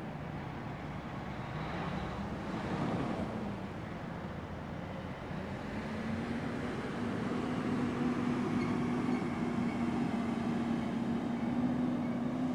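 Baldwin S12 switcher locomotive's diesel engine running as it moves slowly with covered hopper cars behind it. About six seconds in the engine note rises and then holds steady and louder.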